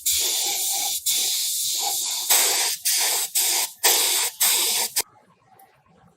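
Paint spraying with a hissing spray, two long passes followed by about five short bursts, cutting off about five seconds in.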